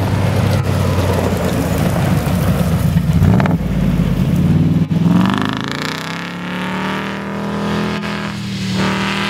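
Range Rover P38's 4.6 V8 engine pulling hard off-road. About five seconds in, the revs climb quickly and then hold high and steady under load.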